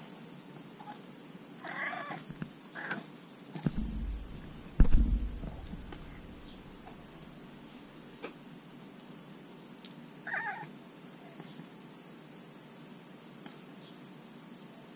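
Domestic cat giving short meows, two about two and three seconds in and another around ten seconds. A loud low thump near five seconds.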